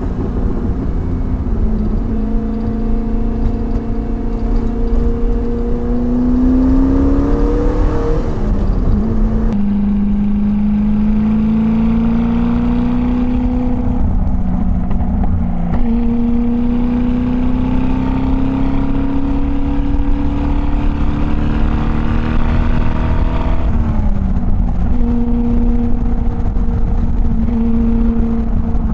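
The 3.9-litre V8 of a TVR Grantura pulls hard along the road. Its note climbs slowly, then drops back sharply, about four times over.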